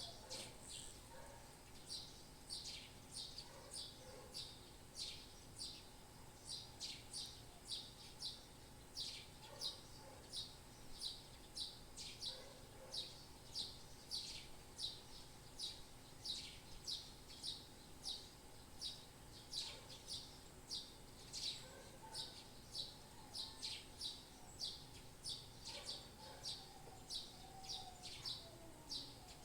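Birds chirping: short, high chirps repeated about twice a second, steadily throughout, over a faint background hum.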